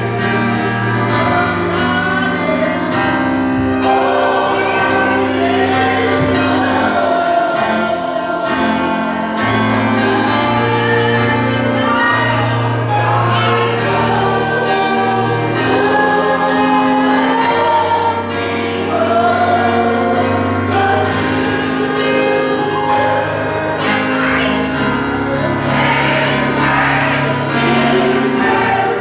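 Church choir singing a gospel song over sustained bass accompaniment.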